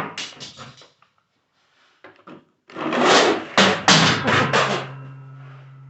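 Toy cars clattering and rolling down a homemade toy car ramp. There is a brief burst of rattling at the start and a longer, louder run of rapid knocks about three seconds in, followed by a low steady hum that fades.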